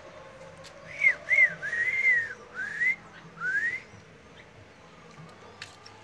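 A short run of clear whistled notes: two quick arching notes, a longer arched note, then two rising glides, lasting about three seconds.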